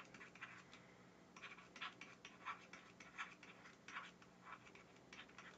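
Faint scratching of a stylus on a drawing tablet as words are handwritten, in a series of short strokes, over a faint steady low hum.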